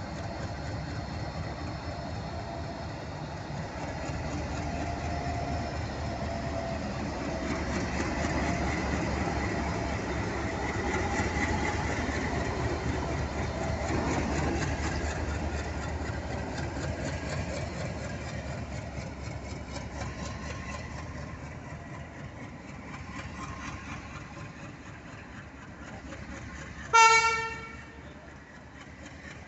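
Indian Railways ALCO WDM-3A diesel locomotive pulling a passenger train away from a standstill: the engine runs under load and grows louder as the locomotive passes. The coaches then roll by with a rhythmic clatter of wheels over the rails. Near the end comes one short, loud horn blast, the loudest sound.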